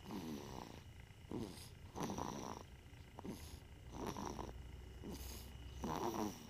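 A one-month-old snoring in its sleep: soft, rattling breaths about once a second, alternating longer and shorter.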